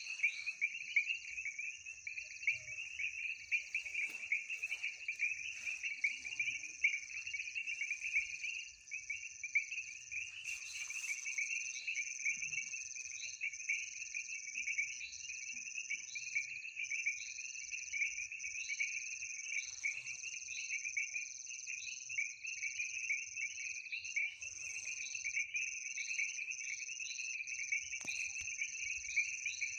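Night chorus of frogs and insects: a dense, steady trilling, with a higher call repeating about once a second over it.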